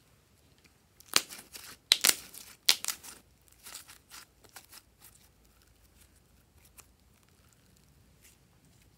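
Slime being stretched and squeezed by hand, tearing and crackling with sharp little pops. The loudest pops come between about one and three seconds in, and softer ones die away by about halfway through.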